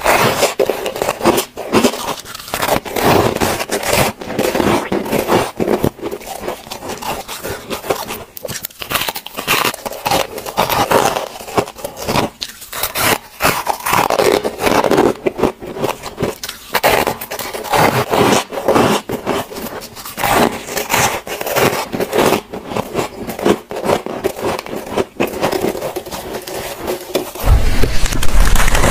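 Close-miked biting and chewing of soft freezer frost: dense, continuous crackling crunches. About a second before the end the crunching gets louder over a low hum.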